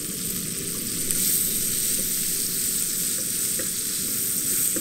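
Halved cherry tomatoes and chopped garlic sizzling as they brown in a nonstick frying pan, with a few light scrapes of a utensil stirring them. The sizzle gets a little louder about a second in.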